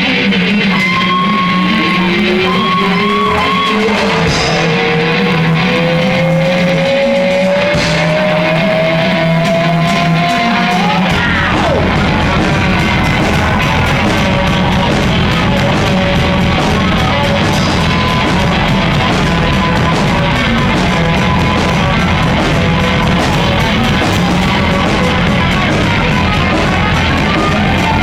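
Rock music: a long note slowly rising in pitch over sparse backing for about ten seconds, then the full band with bass and drums comes in and plays on.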